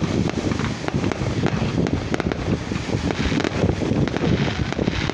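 Wind buffeting the phone's microphone in an uneven rumble, with scattered small pops and crackles from fireworks going off.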